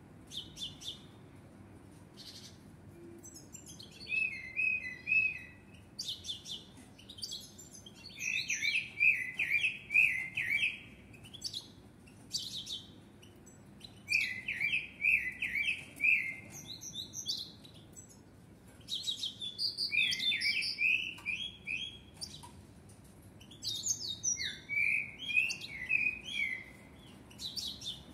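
Common blackbird singing: about five warbled song phrases, each a couple of seconds long, mixing fast sweeping notes with high twittering, separated by short pauses.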